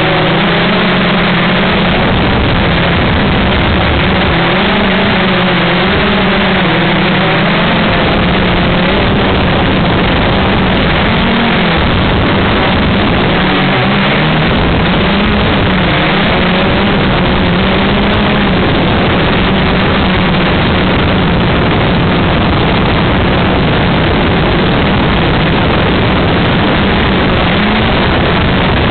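Multirotor drone's electric motors and propellers running in flight, heard from the camera on board: a loud, steady rush of noise with a low hum that wavers up and down in pitch as the motor speeds change.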